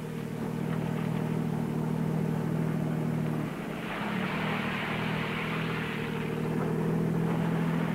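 Engine of a 1962 Chevrolet Corvair Monza Spyder, its turbocharged air-cooled flat-six, running at steady revs, dipping briefly about three and a half seconds in before holding a steady note again. A rushing hiss rises over it for a few seconds in the middle.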